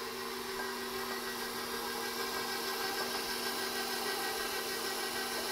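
KitchenAid stand mixer's motor running steadily with its dough hook turning through flour, a constant even whine.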